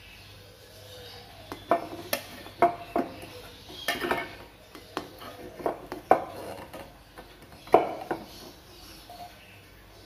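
Kitchen utensils clinking and knocking against a plastic tea strainer and an enamel saucepan as grated ginger is pressed through the strainer to squeeze out its juice. There are a dozen or so sharp knocks in uneven succession, the loudest about three-quarters of the way through.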